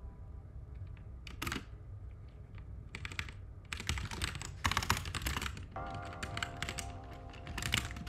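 Computer keyboard typing: a few scattered keystrokes in the first seconds, then fast runs of key clacks from about three seconds in and again near the end. Soft background music comes in during the second half.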